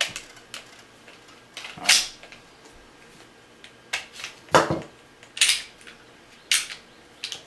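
Taurus 24/7 .45 ACP pistol being handled: a magazine seated in the grip and the slide worked, giving a series of sharp metallic clicks and clacks. The loudest comes about four and a half seconds in.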